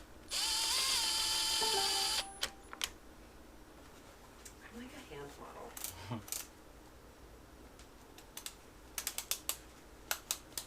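A power tool whirs for about two seconds near the start, then scattered clicks from hand tools on the engine and a quick run of ratchet-like clicks near the end.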